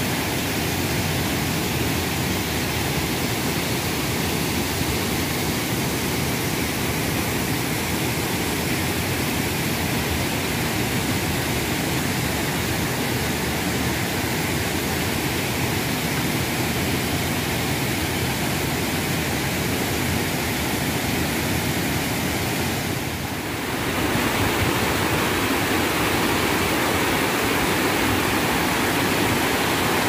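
Steady rush of water from a waterfall and rocky rapids. It dips briefly about three-quarters of the way through and comes back a little louder.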